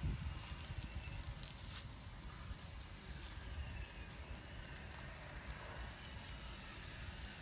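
Outdoor wind rumbling on the microphone, with a few light crackles and taps as bamboo chopsticks break into the charred skin of a fire-roasted fish.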